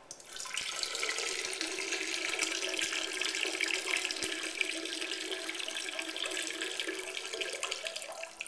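A stream of urine running steadily into the water of a toilet bowl, starting suddenly and stopping shortly before the end.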